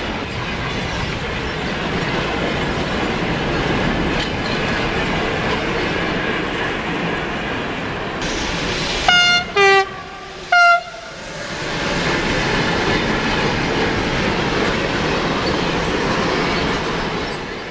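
Freight train hauled by a RENFE class 253 electric locomotive rolling past with a steady rumble of wheels on the rails. About nine seconds in the locomotive sounds its horn in three short blasts in quick succession, then the rumble builds again.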